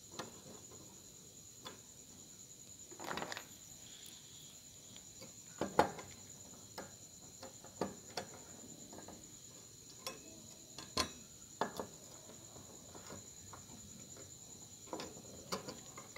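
A screwdriver and small screws clicking and tapping against an aluminium heatsink as transistors are screwed down, with a brief scrape about three seconds in. The sharpest clicks come around six and eleven seconds in.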